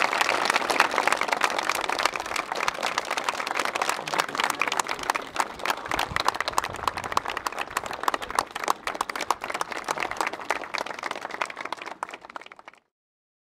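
Crowd applauding: dense hand-clapping from a large audience that gradually thins and grows quieter, then cuts off suddenly near the end.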